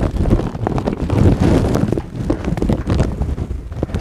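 Fabric rustling and rubbing close to the microphone, with scattered small clicks and scrapes, as a cotton shroud sheet is folded over and smoothed down.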